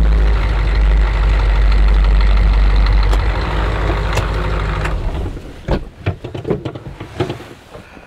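Military Humvee's V8 diesel engine running loud and steady as the truck drives over snow; about five seconds in the engine sound drops away, followed by a string of clicks and knocks from the door latch and the door opening as the driver climbs out.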